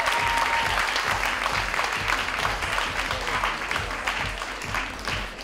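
Theatre audience applauding, thinning slightly near the end, with music playing underneath.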